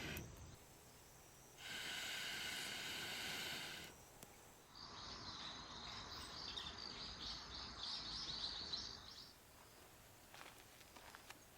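Woodland ambience: faint insect buzzing that starts and stops abruptly, then several seconds of rapid high chirping, with a few faint clicks near the end.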